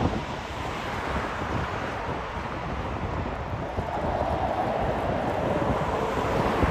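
Jet airliner engine rumble on approach, with wind buffeting the microphone.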